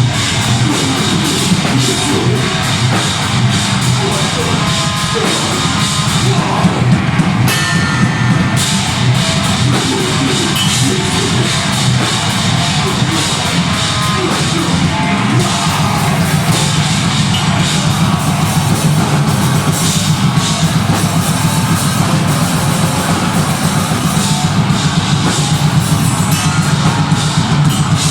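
Deathgrind band playing live at full volume: heavily distorted guitar and bass over drums, dense and unbroken.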